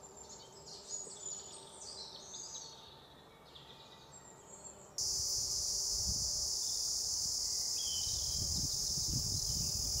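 Faint high bird chirps, then about halfway a cicada starts a loud, steady, high-pitched buzz that cuts off abruptly at the end.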